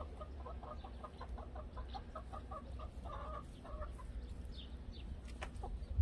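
Chicken hens clucking softly in a quick, even run of short notes, about four or five a second, which stops about four seconds in. A sharp click sounds near the end.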